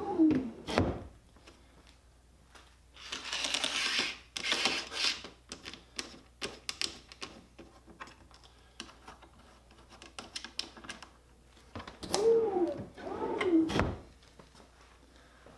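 A wooden drawer running in and out on side-mounted drawer slides: a rushing slide about three seconds in, then a run of light clicks and knocks, and another louder stretch near the end.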